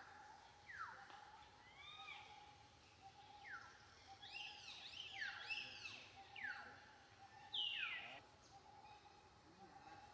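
A series of short, high chirping animal calls, each sliding down in pitch, coming thickest in the middle and loudest about three quarters of the way through, over a faint steady high-pitched tone.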